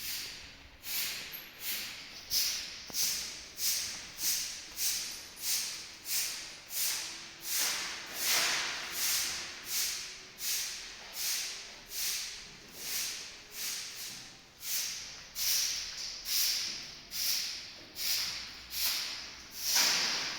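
A broom sweeping in steady, even strokes, about three every two seconds, each stroke a sharp swish that fades away.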